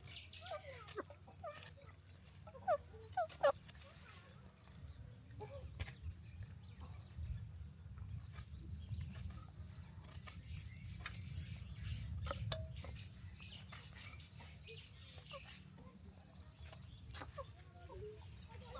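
Chickens clucking a few times, short sharp calls, loudest about three seconds in, then only scattered faint calls over a steady low rumble.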